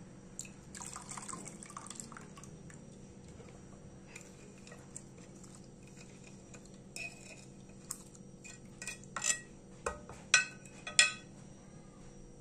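A liquid mint and lemon-zest mixture poured from a bowl into a glass measuring jug of lemon juice: a short trickle with drips. Several sharp dishware clinks follow, the loudest three near the end, as the bowl is emptied.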